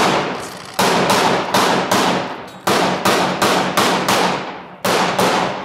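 Rapid series of about ten loud gunshots, fired irregularly two or three a second, each echoing off the surrounding buildings; the last shot comes shortly before the end and fades out.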